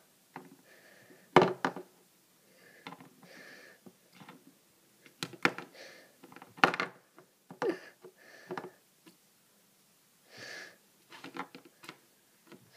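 Small plastic toy figures being handled and knocked on a carpeted floor: a dozen or so irregular clicks and knocks, the loudest about a second and a half in and again about seven seconds in, with soft rustling between.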